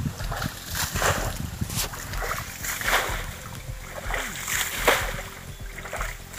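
Muddy water splashing as it is scooped and thrown with a bucket to bail out a shallow pond, in repeated splashes about once a second.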